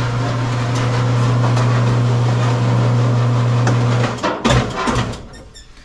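KWM Ironman seamless gutter machine (rollformer) running in forward jog, its motor humming steadily as the coil feeds through the rollers. It stops abruptly about four seconds in, when the jog button is let go, and a few knocks follow.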